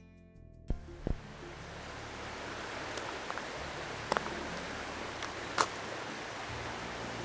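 Steady outdoor background hiss with no distinct source, starting under a second in. Two low thumps come as it begins, and a few short, sharp clicks follow later.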